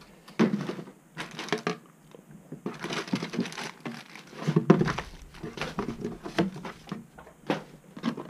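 Clear plastic parts bags crinkling and rustling as they are handled and lifted out of a cardboard box, with a few light knocks of parts against the box.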